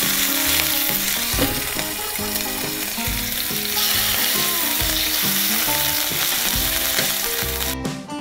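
Thin slices of beef sizzling in a hot stainless-steel frying pan as they are turned with metal tongs, over quiet background music. The sizzling cuts off suddenly near the end, leaving only the music.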